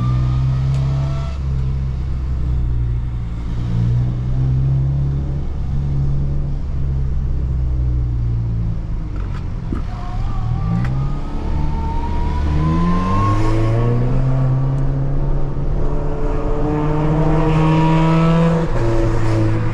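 Volkswagen Jetta TSI's turbocharged four-cylinder engine, Stage 2 tuned with a downpipe, running steadily under light load for about ten seconds, then pulling hard. Its pitch climbs through the second half with a higher whine rising alongside, and it drops back just before the end.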